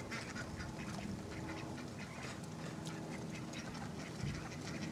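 A small flock of Indian Runner ducks quacking repeatedly in short calls as a herding dog drives them.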